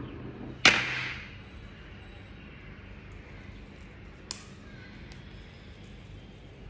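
A sharp knock of a knife blade striking a marble pastry board, ringing briefly, then a fainter click a few seconds later.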